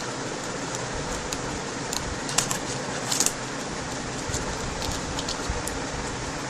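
A few light clicks and taps as a replacement laptop keyboard is handled and laid into a Lenovo G570's chassis, the loudest about two and a half and three seconds in, over a steady background hiss.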